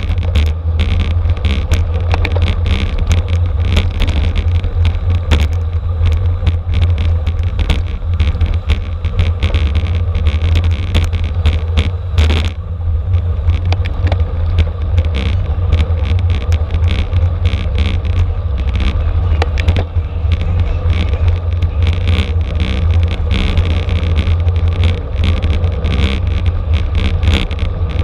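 Wind buffeting the microphone of a camera on a racing bicycle at speed, a steady heavy rumble. Under it run tyre and road noise and frequent small clicks and rattles.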